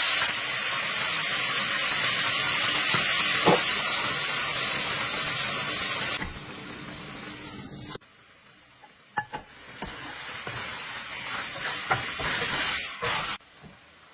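Whole octopuses sizzling loudly in hot oil in a wok as they are stirred with a wooden spatula. About six seconds in, the sizzle drops to a much quieter simmer with a few sharp clicks.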